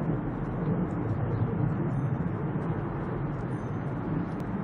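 Steady low rumble of distant engines, with faint short chirps above it.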